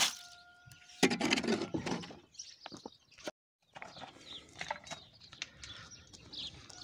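A steel shovel scraping and patting wet concrete around a wooden post, loudest for about a second early on. After a break, quieter shovel knocks in soil, with small birds chirping in short falling notes near the end.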